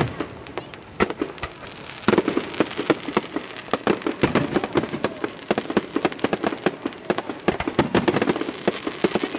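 Aerial fireworks going off: a dense run of rapid sharp pops and bangs that grows thicker and louder about two seconds in.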